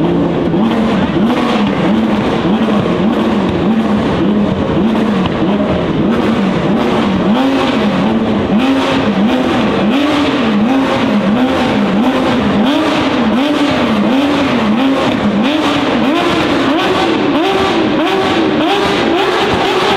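A supercar engine revved over and over in quick blips, its pitch rising and falling about once a second, then held at higher revs near the end, with a rapid crackle of sharp pops over the top.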